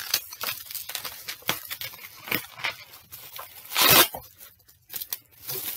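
Bubble wrap being pulled and torn off a boxed vinyl figure: plastic crinkling and ripping in short bursts, with one louder tear about four seconds in.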